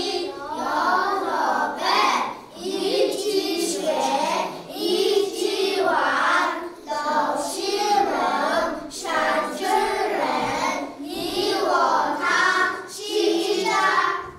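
Young children singing together in short phrases, their voices rising and falling in pitch.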